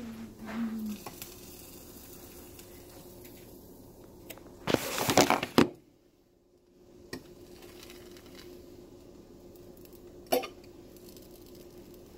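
Kitchen sounds: a loud rush of hiss lasting about a second, about five seconds in, then a few sharp clicks of dishes or utensils over a faint steady hum.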